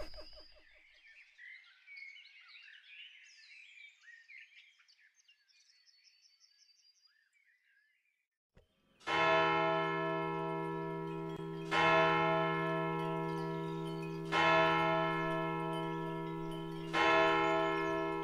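A bell struck four times, about two and a half seconds apart, each stroke ringing and slowly fading. The strokes follow a few seconds of faint high chirping and a short silence.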